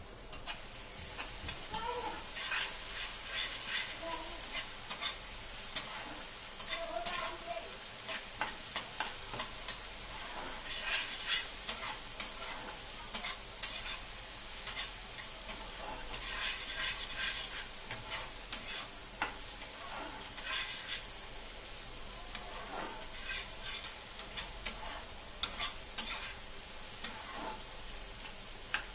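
Marinated chicken pakora pieces sizzling in oil in a wok, stirred with a metal slotted spatula that scrapes and taps against the pan in frequent sharp clicks over a steady frying hiss.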